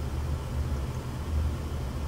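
Steady low background rumble with no distinct clicks or taps standing out.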